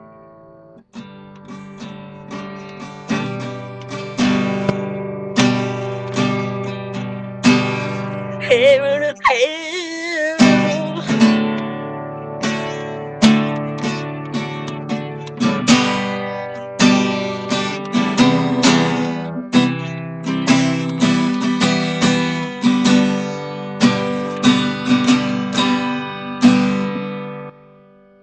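Acoustic guitar played with strummed chords, the accented strums striking and ringing out one after another. The playing stops shortly before the end.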